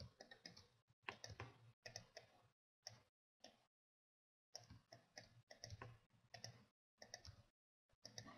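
Faint clicking of a computer mouse, with a few keyboard key presses, coming in small irregular clusters with a short silent gap about midway.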